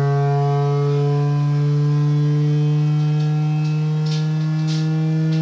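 Loud, steady low electronic tone with many overtones, the hearing-test noise being played to the dogs.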